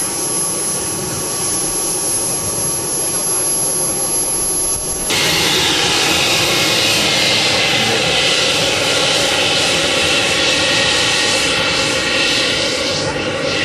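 Two MW44 model jet turbines on a radio-controlled Horten Ho 229 model running on the ground: a steady jet hiss and whine. The sound jumps suddenly louder and brighter about five seconds in.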